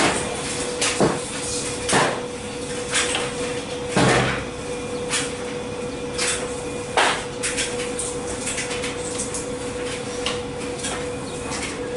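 Speed Queen front-loading washer's drum tumbling a load, with a steady motor hum and irregular clanks and knocks, roughly one a second and loudest in the first half, as the wash drops inside the drum.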